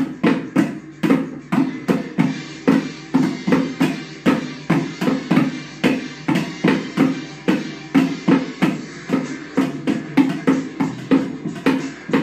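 Drumsticks beating a quick, even rhythm on an upturned plastic bucket and a plastic tub played as drums, several strikes a second.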